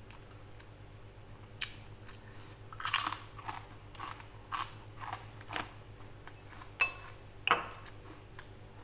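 Close-up crunching of a crispy rempeyek (fried peanut cracker) being bitten and chewed, a crunch about twice a second starting about three seconds in, with two sharper, louder crunches near the end.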